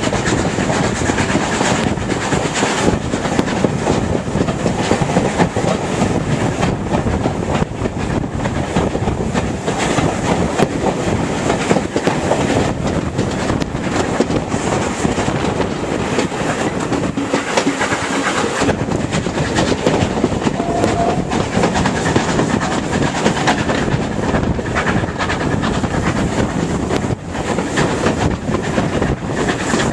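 A train of coaches behind LMS 4F steam locomotive 43924 running along the line: a steady loud rumble with the clatter of wheels over rail joints.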